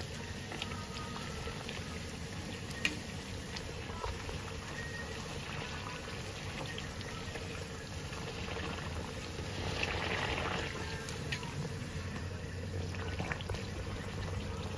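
Bhatura deep-frying in very hot oil: steady sizzling and bubbling from the oil around the dough. There is a single sharp tick about three seconds in, and the sizzle swells for a moment about ten seconds in.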